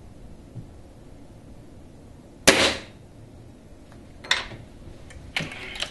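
A single shot from a Cometa Fusion Model 95 .22 spring-piston air rifle about two and a half seconds in, a sharp crack with a short ringing tail and the loudest sound here. Two quieter sharp clacks follow, the second with a brief rasp near the end.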